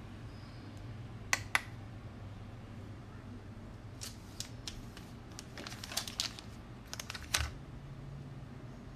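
Handling of a digital kitchen scale's clear plastic tray and a crumpled foil pouch: two sharp clicks about a second and a half in, then a busy run of clicks and crinkles through the middle, as the tray comes off and the foil pouch is set on the scale.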